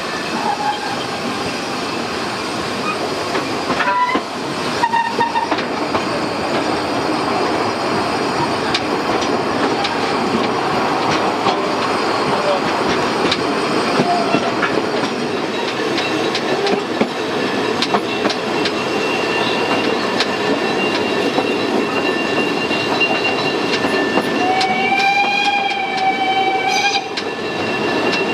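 Narrow-gauge steam train heard from aboard a carriage: the steady rolling rumble and rattle of the wheels on the track, with a thin squeal in the later part. Near the end the locomotive's steam whistle sounds once for about two seconds.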